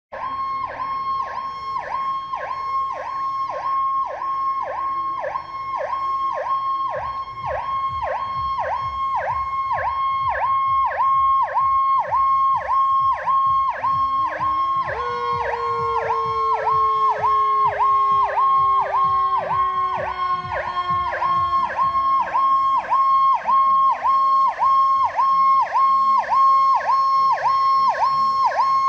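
Fire truck sirens: a loud, rapidly pulsing siren throughout. About halfway through, a second, lower siren tone joins, rises briefly, then slides slowly down in pitch. A low engine rumble grows louder as the trucks approach.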